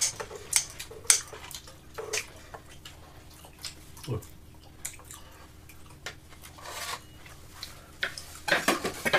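Metal serving tongs clicking and knocking against a wooden pizza board and plates as pizza slices are lifted and served, a scatter of light, irregular clinks.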